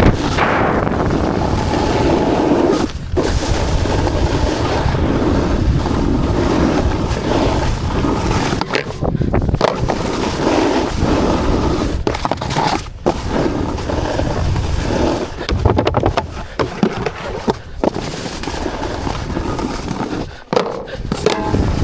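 Snowboard sliding and scraping over packed snow during a terrain-park run, a continuous rough hiss with wind on the mic, broken by several short quiet gaps.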